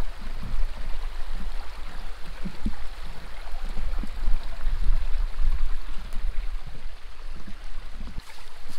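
Small rocky woodland creek running and trickling over stones: a steady rush of water over a low, uneven rumble.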